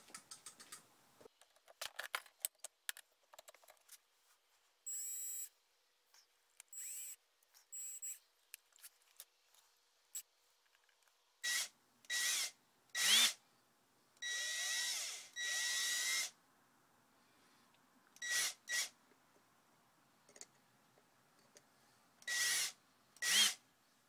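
Cordless drill started and stopped in about a dozen short bursts, each under a second to about a second long, its motor whining as it spins a latch post to coil spring-steel wire into a new latch spring. Light handling clicks come before the first burst.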